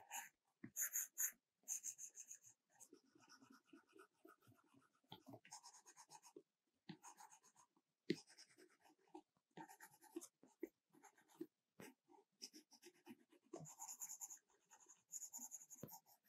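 Faint, irregular scratching and tapping of a stylus tip on an iPad Pro's glass screen, in short quick strokes of drawing and shading.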